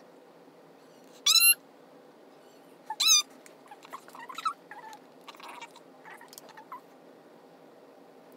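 Two short, loud, high-pitched animal calls about a second and a half apart, followed by a few fainter squeaks and chirps.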